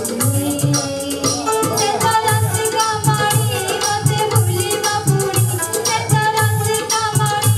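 A woman singing through a microphone over a rhythmic music accompaniment. Low drum beats come about twice a second, with a light high rattle of percussion.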